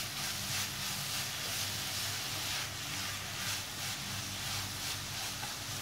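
A spatula stirring and scraping grated coconut with sugar around a nonstick pan on the flame, in repeated soft strokes with a faint sizzle, while the sugar melts into the coconut. A steady low hum runs underneath.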